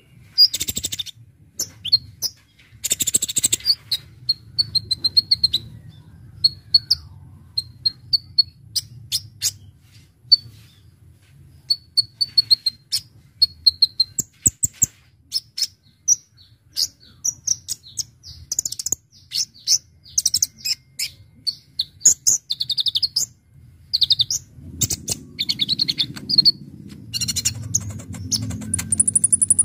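Ruby-cheeked sunbird (kolibri ninja) singing in full voice: a long run of sharp, high chirps and fast trills with short gaps, ending with very high notes.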